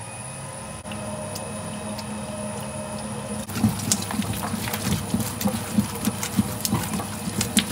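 Electric slime mixer running with a steady hum as it churns a batch of slime. From about three and a half seconds in there is a rhythmic run of soft thuds and clicks, roughly three a second.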